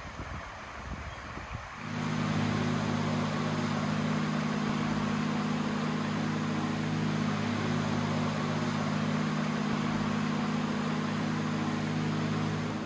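Steady mechanical hum over rushing air from a ventilation or heating blower inside a tiled bathhouse. It starts suddenly about two seconds in and holds level.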